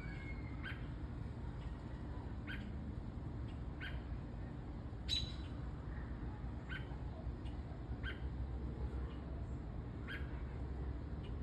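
A small bird giving short, sharp chirps, about eight of them spaced a second or two apart, over a steady low hum.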